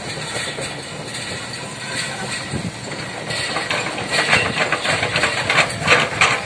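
Hitachi excavator with a log grapple running, with a quick, irregular clatter of knocks and cracks starting about three seconds in.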